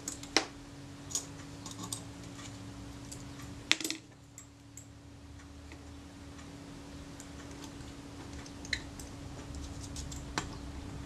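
Small hand tools clicking and tapping against the metal mechanism of a Rolleiflex Automat camera as a lever's pivot screw is set in place: a handful of scattered sharp ticks, the loudest about four seconds in, over a faint steady hum.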